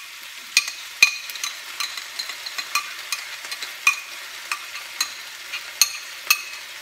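Sliced red capsicums sizzling in a frying pan, under a run of sharp, irregular clinks and taps as a utensil scrapes tomato puree out of a jug into the pan.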